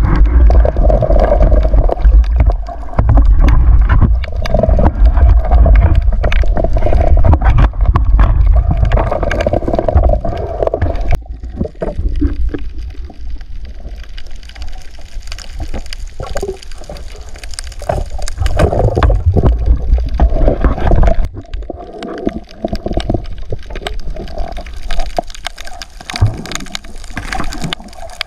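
Water moving and gurgling, heard underwater: a heavy low rumble with scattered clicks, loud for the first eleven seconds or so, then quieter with swells now and then.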